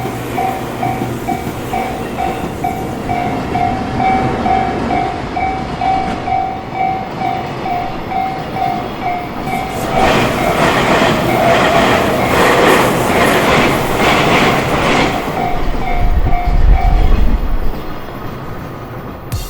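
Japanese level-crossing warning bell ringing in a steady, evenly repeated ding. About halfway in, a train passes over the crossing, loud with wheels clattering over the rail joints, then dies to a low rumble. The bell stops near the end.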